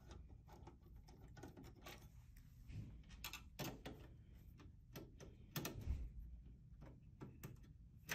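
Faint scattered clicks and small metallic taps of screws being backed out of a desktop computer case's steel lid and handled, with a few louder knocks, the strongest about five and a half seconds in.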